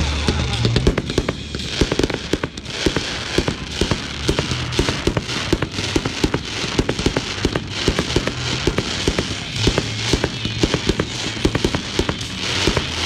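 Fireworks display: aerial shells bursting, with a dense run of sharp crackling pops. Music with a low bass line plays underneath.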